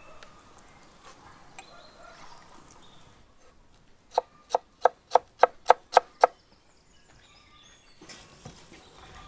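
A knife chopping onion on a wooden cutting board: eight quick, sharp strokes at about four a second, starting about four seconds in.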